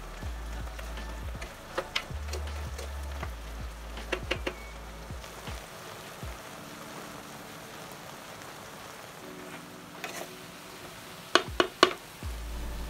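Breadfruit curry sizzling in a clay pot as a spoon stirs it. The spoon knocks sharply against the pot in short clusters, about two and four seconds in and loudest near the end.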